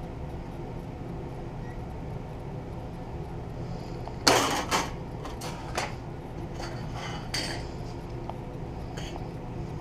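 Sheet metal and hand tools clanking on a workbench: one loud clatter about four seconds in, then a few lighter clinks, over a steady low hum.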